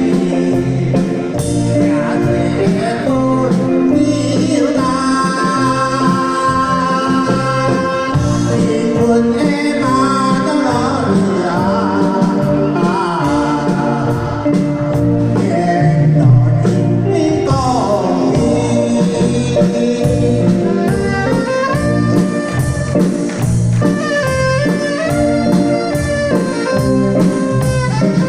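Music of a Taiwanese enka-style song with a steady beat and a melodic lead, with singing.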